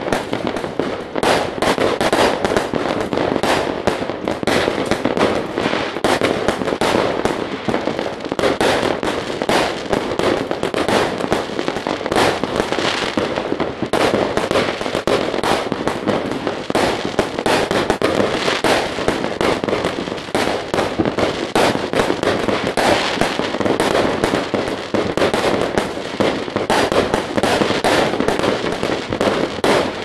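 Fireworks and firecrackers going off in a continuous barrage, many bangs and crackles overlapping with no break.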